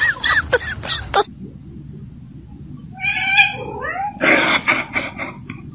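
Domestic cat meowing, a drawn-out call about three seconds in that bends in pitch at its end. It is followed by a loud, harsh, noisy burst, and short high squeaky calls sound in the first second.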